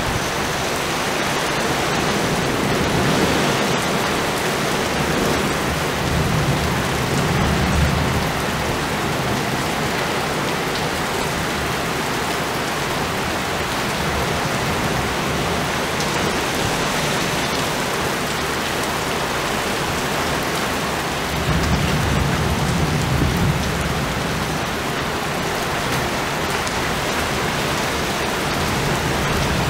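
Heavy rain pouring down steadily. A low roll of thunder swells up about a quarter of the way in, and a louder one about three quarters of the way in.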